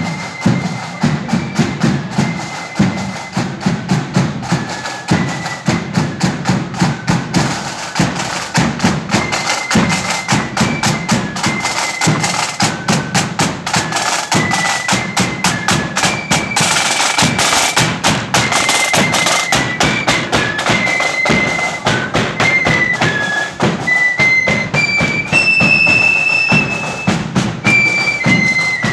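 Marching flute band playing a march: a flute melody over side drums and bass drum beating a steady rhythm.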